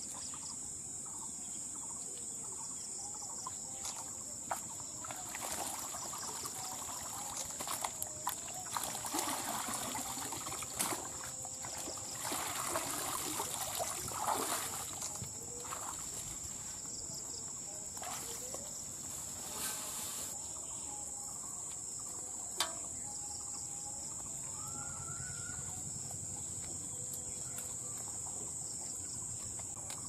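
Water splashing and dripping as a mosquito-net and bamboo fish trap is lifted out of a shallow canal. Underneath is a steady, high-pitched drone of insects. Later on there is a single sharp knock.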